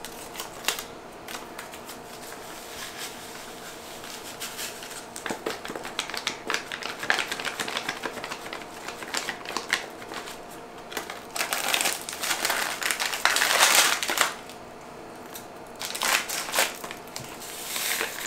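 Paper seasoning packets crinkling and rustling as they are handled, torn open and emptied into a metal mixing bowl, with many small clicks and louder bouts of rustling about twelve and sixteen seconds in. A faint steady hum sits underneath.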